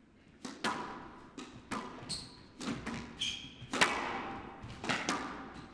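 Squash rally: the ball struck hard by rackets and smacking off the court walls, a sharp crack about every half second to second, each with a short echo, with a couple of brief high squeaks from court shoes.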